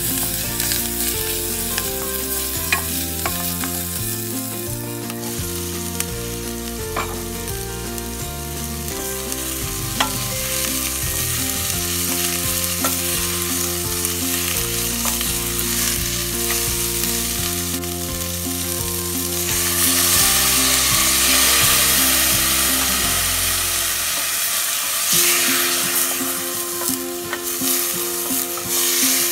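Chopped onion and string beans sizzling in a hot stainless steel pot as they are stirred with a wooden spoon, with a few light knocks of the spoon against the pot. About two-thirds of the way through, the sizzle turns into a louder hiss for a few seconds as a splash of broth is poured in to steam the vegetables.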